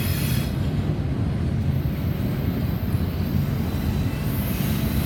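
CSX double-stack intermodal freight train rolling past, its container-laden well cars making a steady low rumble on the rails. A thin high hiss joins in near the end.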